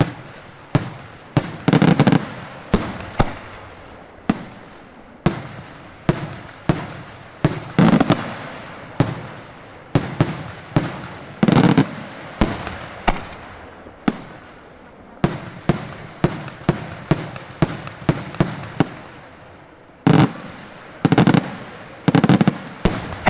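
Daytime fireworks display: a continuous string of sharp bangs, often two or three a second, broken by several quick rolling volleys of reports, each bang trailing off in echo.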